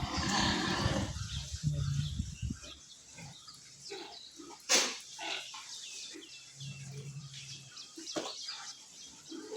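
Pigs grunting and squealing, thickest in the first three seconds and then in scattered short calls, with one sharp knock about halfway through.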